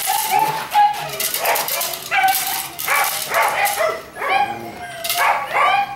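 A young Dobermann puppy giving repeated high-pitched barks and yips while tugging on a rope toy.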